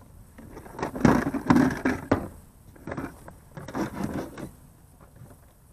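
Hard plastic knocking and scraping as a fish-measuring board is handled and laid down on a plastic kayak. It comes in two clattering bursts, about a second in and again near four seconds in.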